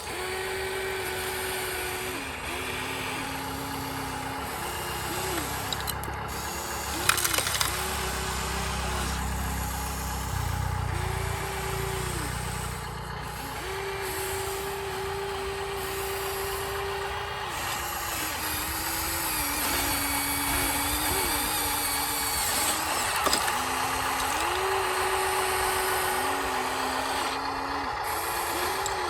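Small electric motors of RC construction toys whining, the pitch stepping up and down with short glides as the motors start, stop and change speed, over a rough scraping haze, with a few sharp clicks about seven seconds in.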